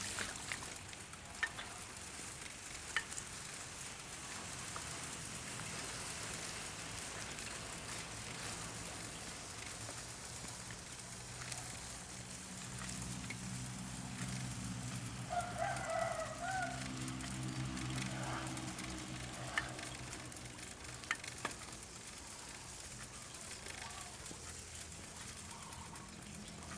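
A rooster crows once near the middle, over a steady hiss of a wet village after rain with a few sharp ticks. A low steady hum comes in about halfway and fades several seconds later.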